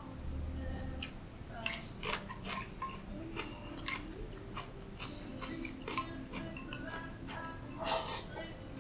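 Chopsticks clicking and scraping against a ceramic rice bowl as food is scooped up and eaten, in scattered sharp clicks with a denser cluster near the end as the bowl is raised to the mouth.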